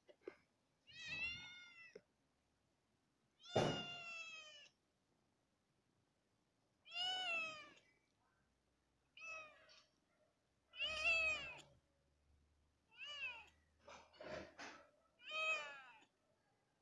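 A black-and-white kitten meowing repeatedly: about eight high, clear meows a second or two apart, each rising and then falling in pitch, with a few short ones close together near the end.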